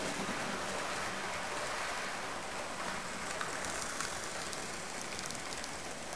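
HO-scale model train running past close by: a steady rushing rumble of metal wheels rolling on the track, with light, rapid clicks in the second half.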